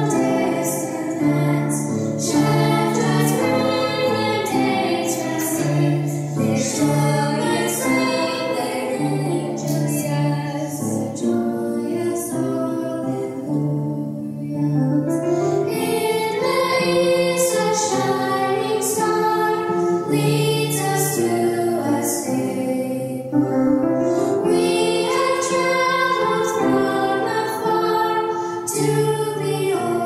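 School choir singing a holiday song.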